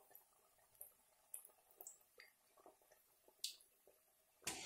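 Near silence with faint, scattered crackles and pops from vadai deep-frying in hot oil; a louder noise starts near the end.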